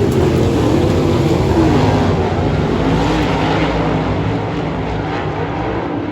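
Sprint cars racing on a dirt oval in a heat race, the engines' pitch rising and falling as they go round the track. The sound eases off a little near the end.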